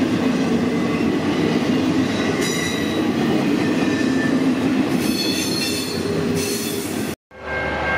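Norfolk Southern train rolling past with a steady rumble. Its wheels squeal high-pitched twice, briefly and then for longer. The sound cuts off abruptly about seven seconds in.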